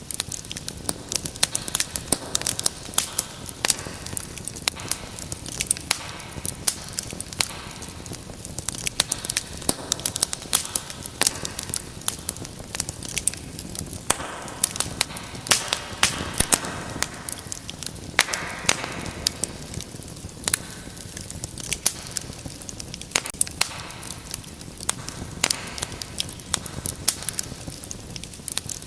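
Wood fire in a fireplace crackling, with many sharp pops and snaps over a steady low hiss of burning. A brief hissing flare swells up about halfway through.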